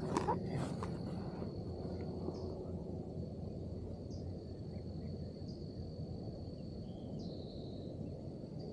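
Outdoor ambience: an insect's steady high-pitched trill at one constant pitch, over a low background hush, with a few faint short chirps. A couple of brief rustling clicks come in the first second.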